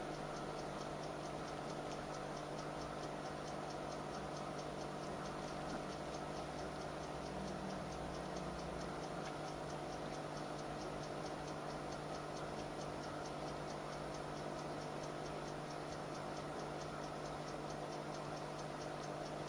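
Steady, even ticking, about four ticks a second, over a low steady hum.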